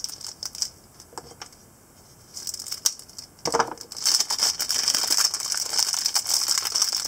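Clear plastic wrapping crinkling and rustling as a puzzle is pulled out of it by hand. A few light clicks come first, and the crinkling starts about two seconds in.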